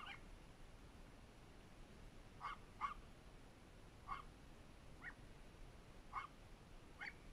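A dog barking faintly: about seven short barks, irregularly spaced a second or so apart, with a quick pair among them.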